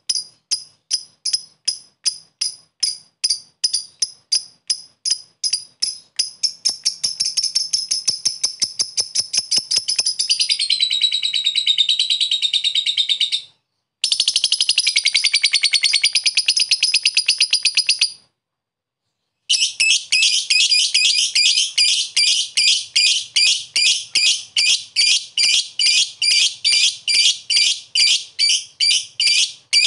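Blue masked lovebird chattering its long 'ngekek' song. Sharp high chirps come at about three a second and speed up into a fast continuous trill. The trill breaks off twice, and the chirps then resume at a steady rate of about three a second.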